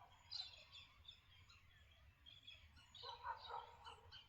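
Faint harsh screeching calls of galahs flying over, a few at the start and a cluster about three seconds in.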